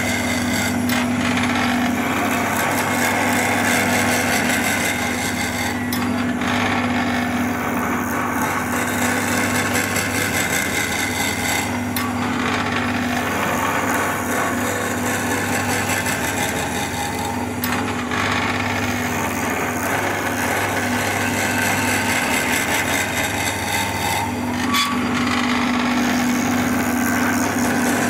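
Wood lathe running with a steady motor hum while a turning tool cuts and scrapes the spinning wood.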